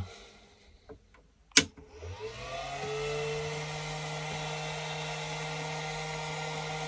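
A switch clicks about a second and a half in, then the Glitter 811H spot welder's cooling fan spins up, its pitch rising for about a second before it settles into a steady run.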